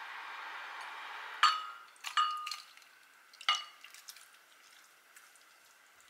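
A saucepan knocks against a ceramic bowl three times with sharp, briefly ringing clinks while tteokbokki, chewy rice cakes and fish cakes in thick sauce, slides and plops wetly into the bowl. A steady hiss is heard for the first second and a half.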